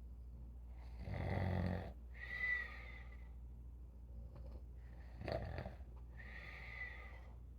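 A sleeping elderly person snoring: two slow breaths, each a low rattling snore followed by an airy breath with a whistling tone.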